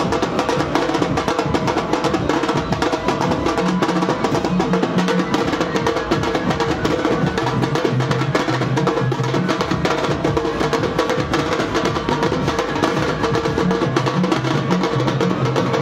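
Music driven by fast, continuous drumming over a low, stepping melody line.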